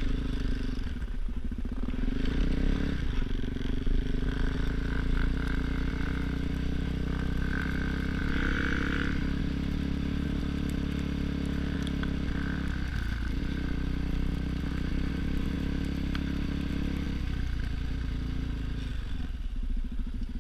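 Motorcycle engine running under way. Its pitch drops and climbs back several times, as with gear changes.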